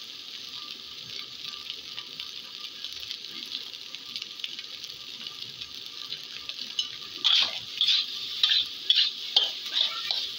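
Fried rice sizzling steadily in a hot wok. About seven seconds in, a metal spatula starts scraping and tossing the rice against the wok in quick, loud, repeated strokes.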